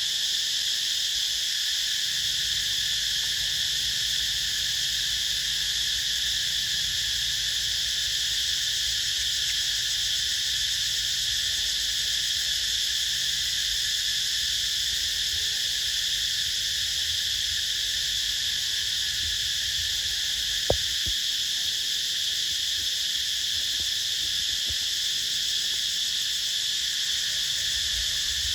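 Steady, unbroken chorus of insects, high and droning, with one sharp click about twenty seconds in.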